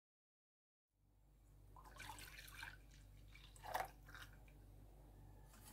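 Near silence, broken by a few faint clicks and soft scraping sounds of kitchen utensils from about two seconds in. The loudest is a sharp click just before the four-second mark.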